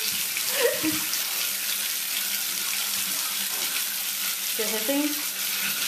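Bathtub faucet running steadily, water splashing into the tub and onto a cat being bathed, with two short cries from the cat, one about half a second in and another about a second before the end.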